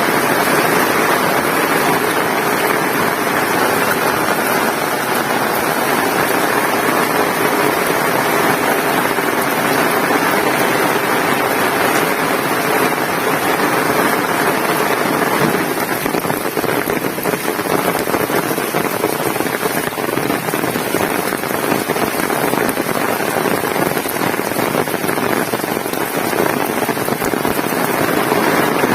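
Heavy rain falling steadily, a dense, even hiss of raindrops with no let-up.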